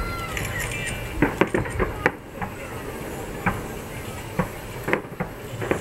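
Aerial fireworks bursting: a string of irregular sharp bangs and pops, with a cluster of the loudest about a second and a half in and more scattered through the rest.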